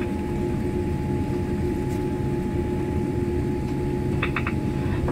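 Cabin noise of a Boeing 787 taxiing after landing: a steady low rumble from its GEnx engines at taxi power, with an even hum over it. A few brief ticks come about four seconds in.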